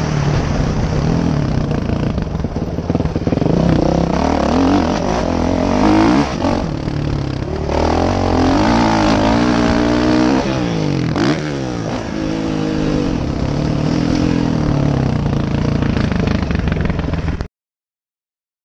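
Motocross bike engine revving hard and backing off over and over as it is ridden round a dirt track, its pitch rising and falling with the throttle. The sound cuts off suddenly near the end.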